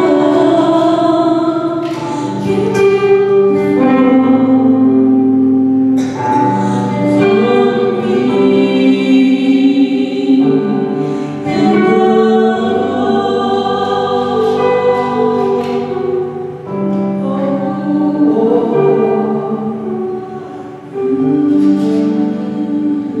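A woman and a man singing a slow duet into microphones, with long held notes.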